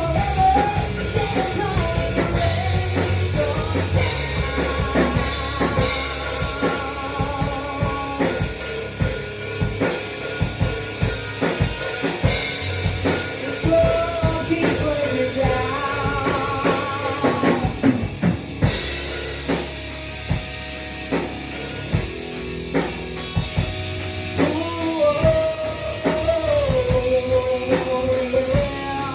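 A live band playing a song, with drum kit, bass and guitar under a sung melody.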